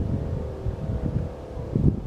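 Wind buffeting the microphone in irregular low rumbling gusts, the strongest near the end, over a faint steady hum.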